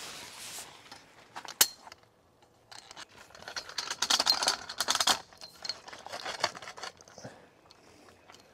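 Tarp strap being pulled tight through its buckle, with the tarp fabric rustling. A sharp click comes about one and a half seconds in, then a couple of seconds of rasping, clicking and rustling, and a few fainter clicks near the end.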